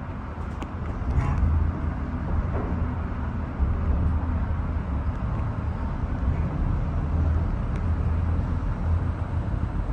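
Disney Skyliner gondola system running with a steady low rumble, getting louder about a second in, with a few faint clicks.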